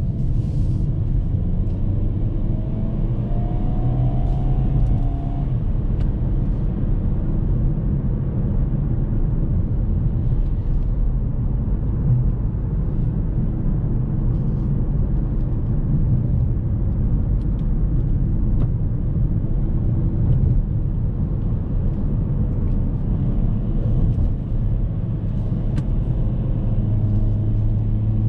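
Hyundai Kona N's 2.0-litre turbocharged four-cylinder engine running steadily under way, mixed with a constant road and tyre rumble. The engine note rises briefly about four seconds in and again near the end as the car picks up speed.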